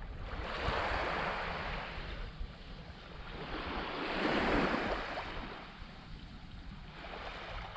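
Small waves washing onto a sandy shore, the surf swelling up about a second in and again around the middle, over a low rumble of wind on the microphone.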